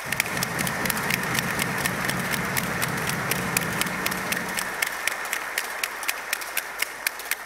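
Large seated audience applauding, a dense patter of many hands clapping that thins and dies down over the last couple of seconds.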